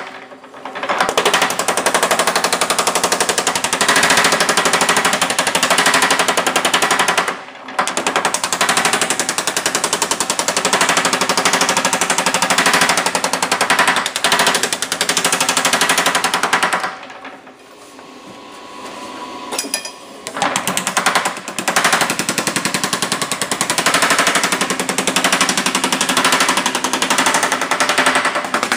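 Yoder power hammer running, its dies pounding a sheet-metal fender panel in rapid, continuous strokes as the panel is shrunk. The hammering stops briefly about seven seconds in and again for about three seconds past the middle, then resumes.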